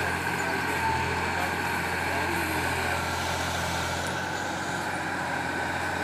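Mahindra tractor's diesel engine running steadily, driving the hydraulics of a backhoe-loader attachment as the arm swings and lowers the bucket.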